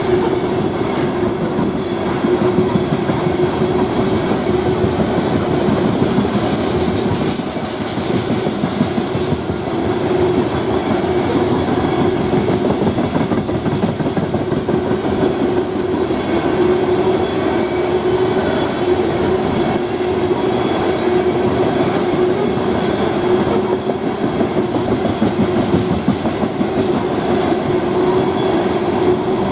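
Freight train cars rolling past over a grade crossing, wheels clacking over the rail joints with a steady hum from the rolling stock.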